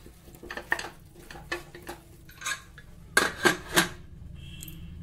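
Wooden spatula scraping and knocking against the inside of a Prestige Deluxe pressure cooker while stirring potatoes and masala paste, with scattered taps and a run of three louder knocks about three seconds in.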